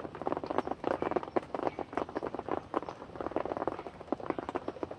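Heavy rain pattering: many irregular drops tapping close by, with no steady rhythm.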